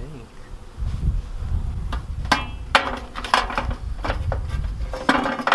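A series of sharp knocks and clatter, like hard objects being handled, over a low rumble.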